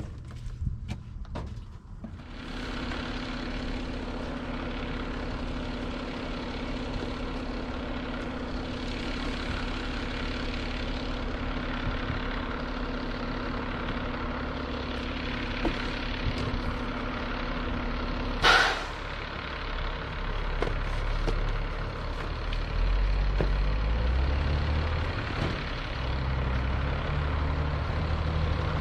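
Truck engine running with a steady hum. A short, loud, sharp sound comes about two-thirds of the way through, and then the engine works harder with a deeper, uneven rumble.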